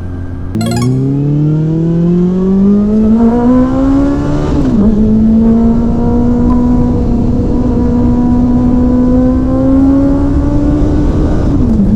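Honda CB400 Super Four's inline-four engine pulling away and accelerating with a steadily rising note, then a quick upshift, a steady cruising drone in the higher gear, and another upshift near the end.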